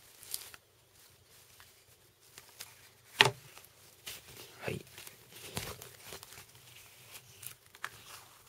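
Thin foam packing sheet rustling and crinkling as it is handled and peeled off an electronic dictionary, with scattered small clicks and one sharp knock about three seconds in.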